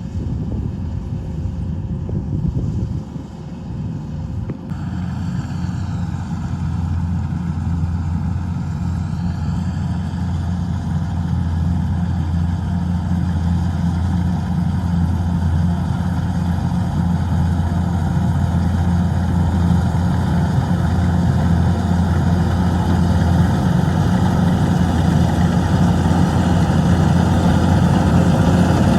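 An engine running steadily with a low hum; about five seconds in the sound becomes fuller and brighter and then slowly grows louder.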